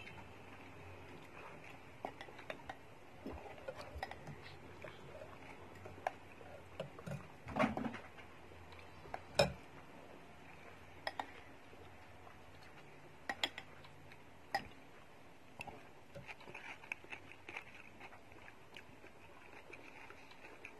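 A fork and spoon clinking and scraping against a bowl of meatball soup as a person eats, with scattered light taps and two louder knocks partway through.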